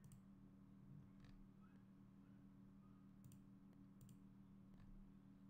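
Near silence with several faint, scattered computer mouse clicks over a low steady hum.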